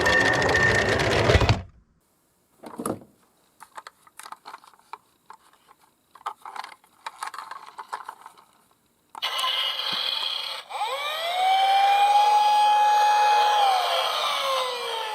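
Electronic toy siren sounds from police car and fire engine minicars, cutting off about two seconds in. A quiet stretch of faint scattered clicks and rattles follows. About nine seconds in, several sirens start again together, overlapping wails that rise, hold and fall.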